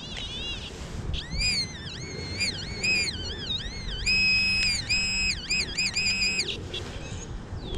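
Metal detector's electronic audio tones, warbling up and down in pitch, then breaking into a run of held, steady beeps about halfway through, as the dug target is pinpointed.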